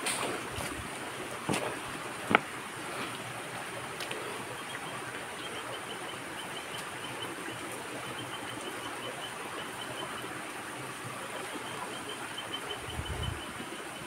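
Steady rush of falling water at a forest waterfall. There is a single sharp click a couple of seconds in, and a faint, rapid, high chirping from about five seconds in.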